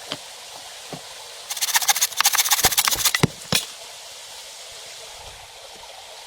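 Steady hiss of rain, broken about a second and a half in by a loud run of rapid crackling snaps lasting nearly two seconds, then one more snap.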